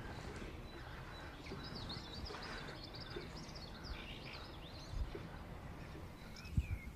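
Small birds chirping and twittering over a steady low outdoor hiss, with a couple of soft low thumps about five seconds in and near the end.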